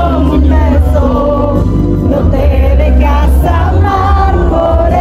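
Loud live concert music: a singer over a band, with very heavy bass.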